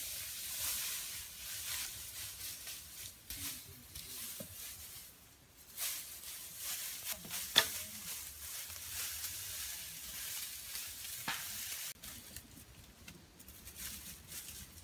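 Dry grass thatch rustling and crackling as it is handled, laid and pressed down onto a roof, with scattered small clicks and one sharp snap about seven and a half seconds in.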